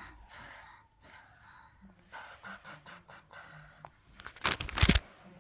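Small plastic toy pieces being handled and fitted together, with faint scattered clicks, then a short, loud rush of noise close to the microphone about four and a half seconds in.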